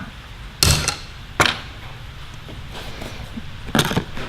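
Hand tools being handled out of a tool bag: three sharp knocks of tools striking each other or the bag, about half a second in, about a second and a half in, and a longer clatter near the end.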